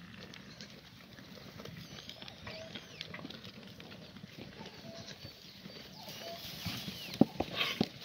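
Herd of goats and kids milling about on straw: scattered short calls and light rustling and patter, with a few sharp knocks about seven seconds in.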